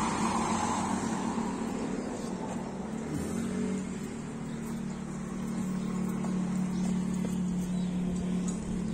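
A steady low motor hum, growing a little stronger in the second half.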